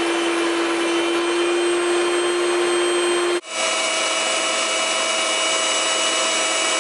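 Electric stand mixer with twin beaters running steadily, whipping butter and icing sugar into buttercream. Its motor hum drops out briefly about halfway through and comes back at a higher pitch.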